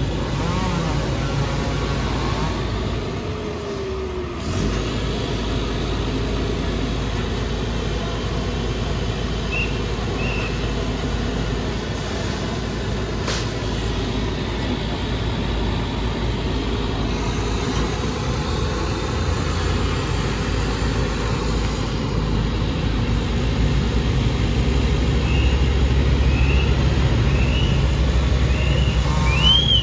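Steady low rumble of vehicle engines and road traffic, growing a little heavier in the last third, with a few short high chirps.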